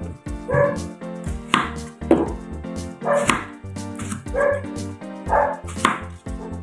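A dog barks several times in short single barks over steady background music. Between the barks come a few sharp knife strokes on a wooden chopping board as a cucumber is sliced.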